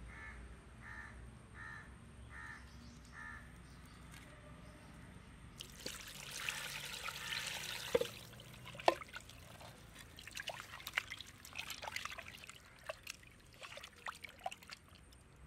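Water poured into a clay pot of raw chicken pieces for about two seconds, then hands splashing and squeezing the chicken in the water, with scattered sharp knocks and splashes. In the first three seconds a bird calls five times.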